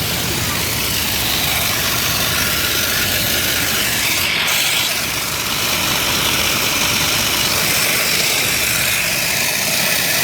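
Car engine idling, with a steady rushing hiss of exhaust gas escaping from a leak at the muffler and just ahead of the catalytic converter.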